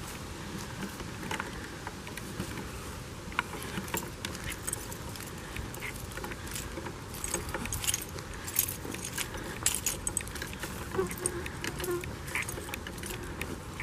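Footsteps crunching through dry leaf litter and pine needles, with irregular light clicks and rattles that come thicker in the middle of the stretch.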